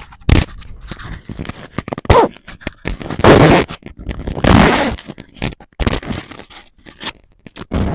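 Metal zipper on a plush fleece jacket being worked open and shut, its slider scraping along the teeth, with the fleece rustling under the hands. Short scrapes and crackles throughout, with two longer zipping runs about three and four and a half seconds in.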